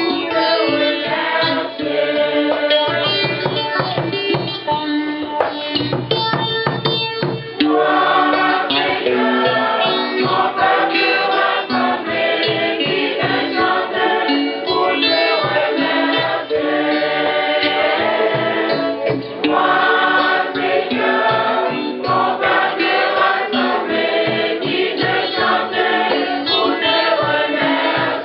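Church choir singing a hymn with instrumental accompaniment and a steady beat.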